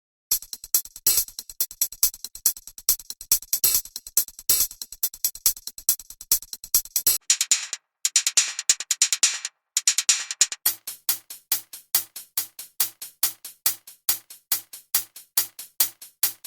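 Drum-machine hi-hat sample loops played one after another: fast, even patterns of crisp hi-hat ticks, with brief gaps between loops about seven and ten seconds in. The last loop runs at a steady few ticks a second with a faint low note under each hit.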